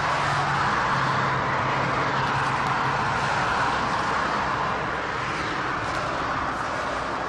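Toyota 7M-GE 3.0-litre straight-six engine running steadily with a knock, which the owner suspects is a damaged connecting rod.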